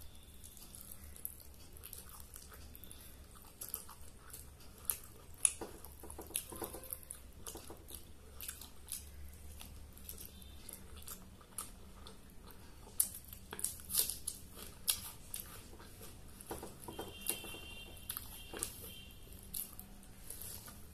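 Close-up eating sounds: biting into a chili chicken leg and chewing, with scattered sharp mouth clicks that come thickest about two-thirds of the way through.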